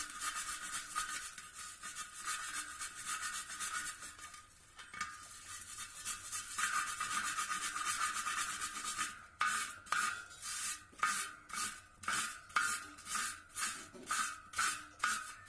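Hand brush scrubbing rust off the inside of a steel motorcycle wheel rim, a fast continuous scraping that turns, about two-thirds of the way in, into separate hard strokes about two a second.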